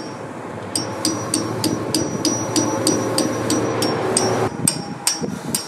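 Hammer tapping a steel punch into the threaded bolt holes of a Bandit 1290XP drum chipper, knocking packed wood chips out the back of the holes. The taps come in a quick, even run of sharp metallic strikes with a ringing tone, about four a second, over a steady hum that stops near the end.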